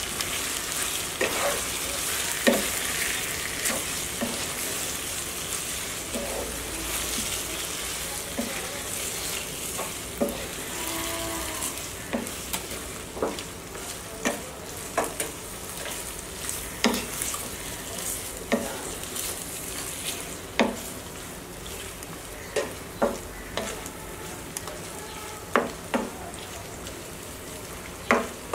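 Yogurt-marinated chicken pieces sizzling in hot oil in a nonstick frying pan while a wooden spatula stirs them, knocking and scraping against the pan about once a second. The sizzle is a little stronger in the first half. This is the chicken being sautéed (koshano) to brown it.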